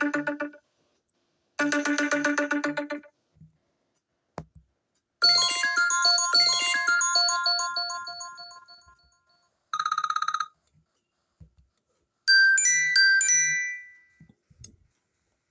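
iPhone XR ringtone and alert tones previewed one after another through the phone's speaker. First comes a buzzy tone played twice, then a chiming bell-like melody about five seconds in that fades away over several seconds. A short rapid beep follows around ten seconds, and a bright rising chirp near thirteen seconds.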